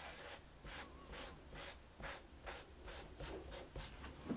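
Faint, soft rubbing strokes, about two to three a second, of a cotton wad wiping stain onto a wooden soundpost patch set into a cello back.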